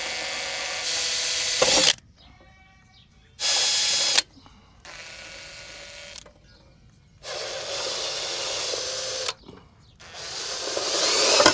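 Cordless drill running in five short bursts, each a steady whine, the last one growing louder, as it works on the fasteners holding a fridge evaporator plate.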